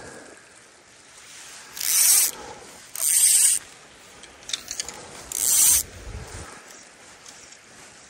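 Fly reel ratcheting as line is pulled off it in three quick pulls, each about half a second, with a few light clicks in between.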